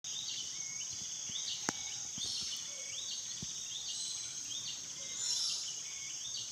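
Outdoor ambience: a steady high-pitched insect drone with a short chirp repeating about every three-quarters of a second. A single sharp click comes about a quarter of the way in.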